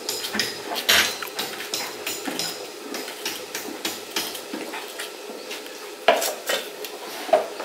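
Okra pods being sliced by hand with a knife, the cut pieces dropping onto a metal plate in irregular light clicks and clinks, with a few louder clinks about a second in and near the end.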